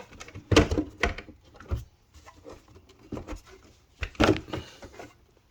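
Plastic engine cover over a BMW B58 engine being pried up off its four snap-in latches: a handful of sharp plastic clicks and clatters, the loudest about half a second in and again about four seconds in.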